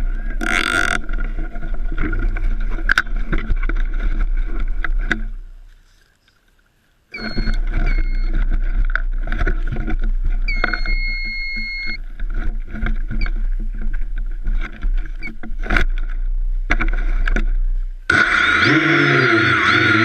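Wind buffeting the camera microphone, with knocks of handling, a brief dropout to near silence, and a few short electronic beeps partway through. About eighteen seconds in, the homemade H-frame quadcopter's motors and propellers spin up suddenly to a loud whine that rises and falls in pitch as it flies.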